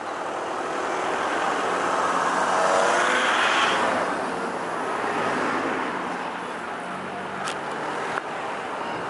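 Car engine and road noise, swelling to a peak about three seconds in with the engine pitch rising and then falling, then easing off. A brief high chirp comes near the end.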